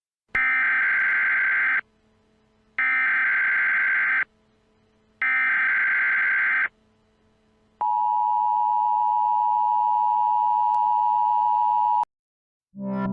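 Emergency Alert System SAME header: three identical bursts of screechy digital data tones, each about a second and a half long, a second apart. They are followed by the EAS attention signal, a steady two-tone beep held about four seconds, which cuts off suddenly.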